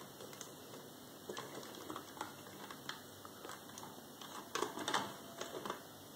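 Plastic toy tractor being handled, its plastic parts and wheels giving scattered small clicks and knocks, with a louder clatter about four and a half seconds in.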